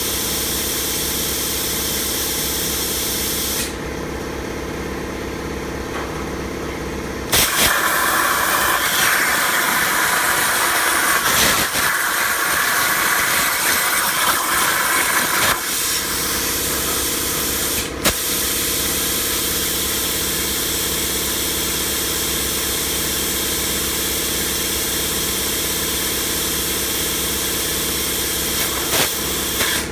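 Plasma cutter on a CNC plasma table, its air hissing over a steady machine hum. The hiss stops for a few seconds, then a louder, harsher hiss of cutting runs for about eight seconds before the steady hum and hiss return.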